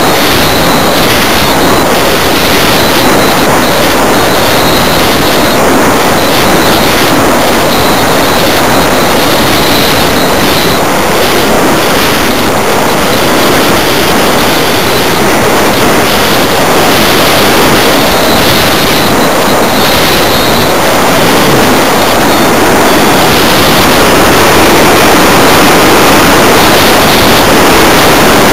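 Loud, steady rush of airflow over the microphone of a camera riding in an unpowered 1/6-scale BAC IV model glider in flight, with a faint high whistle that wavers in and out.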